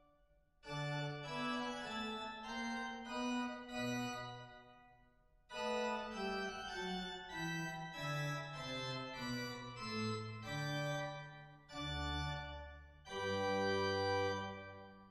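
Slow organ music playing in phrases separated by brief pauses, with deep bass notes added near the end.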